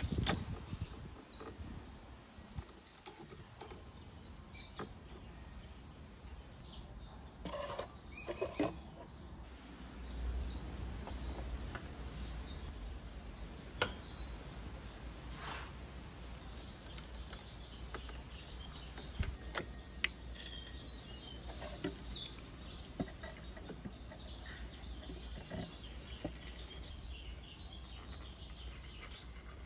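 Sparse clicks and clinks of a ratchet and 17 mm socket loosening the oil strainer screen cap on a Honda PCX scooter's engine case. Faint short high chirps are scattered throughout, over a low steady hum.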